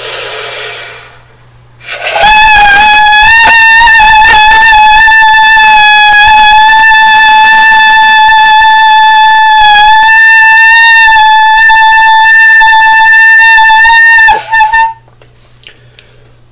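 Shofar (ram's horn) blown in one long, steady blast for about twelve seconds, with a short wavering break and a brief pick-up just before it stops. A short hiss comes just before the blast.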